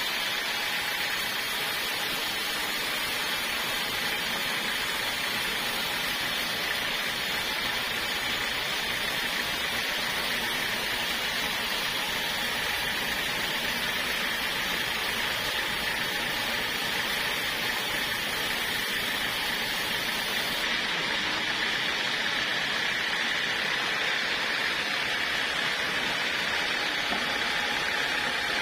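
Sawmill blade cutting steadily through a wooden log: an even, continuous sawing hiss with no breaks.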